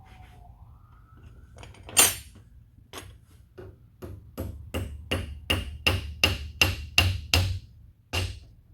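Hammer driving a roll pin into the rebuilt IH 1086 hand pump, metal on metal: one hard blow about two seconds in, then a run of ringing taps at about two and a half a second, and a last blow near the end.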